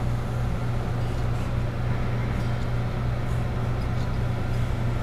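A steady low mechanical hum with an even hiss over it, unchanging throughout, as of a fan or air handler running.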